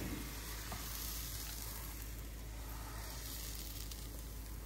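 Freshly poured crepe batter sizzling steadily in a hot nonstick frying pan over a gas flame.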